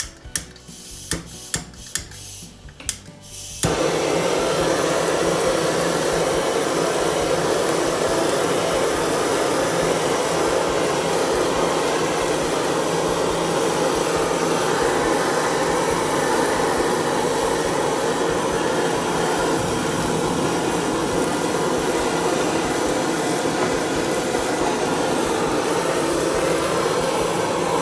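A few sharp clicks, then a handheld butane blowtorch lights suddenly about three and a half seconds in. It hisses steadily as its flame is played over fish fillets.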